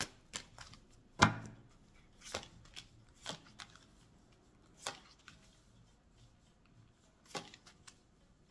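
Oracle cards shuffled, then laid down one at a time on a cloth-covered table: a string of separate sharp taps and slaps, irregularly spaced, the loudest about a second in and thinning out toward the end.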